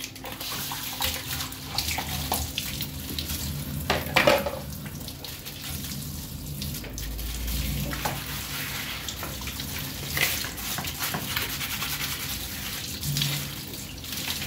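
Kitchen tap running into the sink while plastic bowls and a colander are rinsed by hand under the stream, pre-rinsing loose dirt off before the dishwasher. There are a few sharp knocks as the plastic ware is handled, the loudest about four seconds in.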